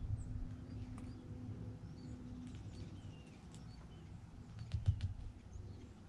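Small wild birds at a backyard seed feeder giving brief, faint chirps, with a few sharp ticks, most of them close together near the end, over a low steady rumble.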